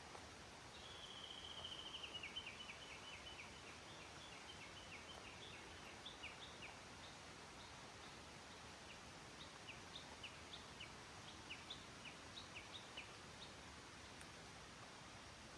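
A small bird calling: a quick, slightly descending trill of high notes about a second in, then scattered short high chirps over the next ten seconds, above a faint steady hiss.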